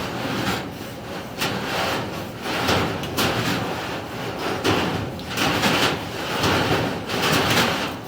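Inspection camera cable scraping and sliding inside sheet metal ductwork, in irregular rasping strokes as it is pushed and worked along the duct.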